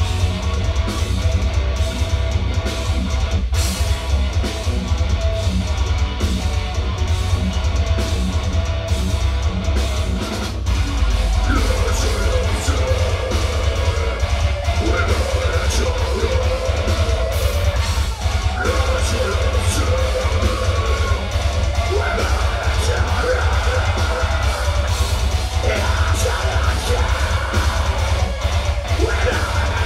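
Metal band playing live: distorted guitars, bass and drum kit, with a very heavy low end. Vocals come in about a third of the way in over the riffing.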